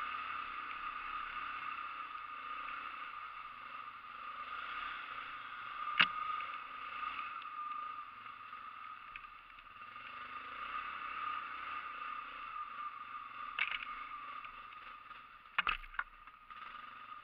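An ATV's motor running with a steady whine. A sharp knock comes about six seconds in, and a few more clacks come near the end.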